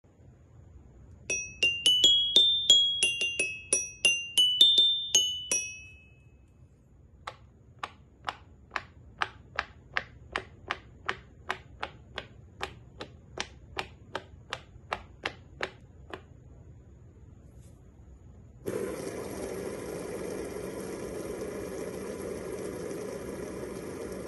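A toy metal-bar xylophone struck quickly across several notes, each note ringing. Then a silicone pop-it toy's bubbles are pressed in one after another with a stick: a steady run of about twenty sharp pops. Near the end a metal fidget spinner spins with a steady whir.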